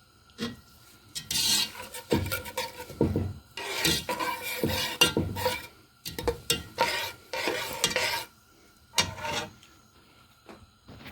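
Sesame seeds frying in oil in a pot, stirred with irregular scraping strokes and short pauses. The stirring stops about nine and a half seconds in.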